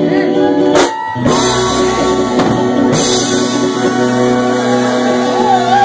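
Live band with drums, electric guitar and saxophone playing soul-funk: a short sharp band hit about a second in, then one long held chord over the drums, with a wavering note near the end.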